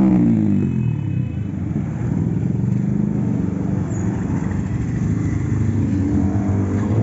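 Motorcycle engines running as bikes ride past one after another, a steady engine drone with a rising note near the end.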